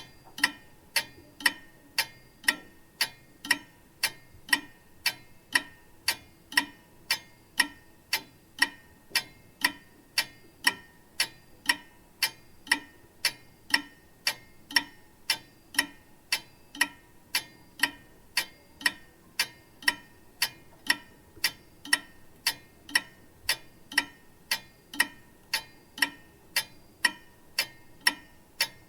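Grandfather clock ticking steadily, with evenly spaced sharp ticks at about two a second.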